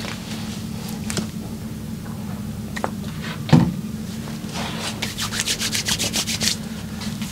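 Massage hands rubbing over skin, with one dull thump about halfway through and then a quick run of brisk rubbing strokes, about eight a second, near the end.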